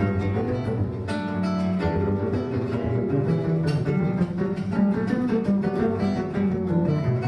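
Acoustic guitar and double bass playing together: quick plucked guitar notes over a double bass played pizzicato with the fingers.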